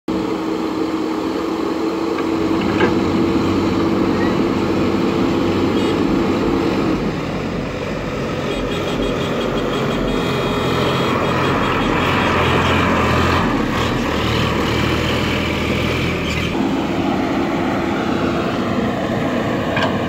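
JCB 3DX backhoe loader's diesel engine running steadily under load while the backhoe digs. Its engine note shifts about a third of the way in and again near the end.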